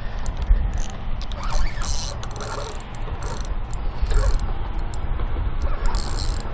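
Spinning reel being cranked and giving line while a hooked fish pulls on a bent rod, its gears and drag making irregular ratcheting clicks over a steady low rumble.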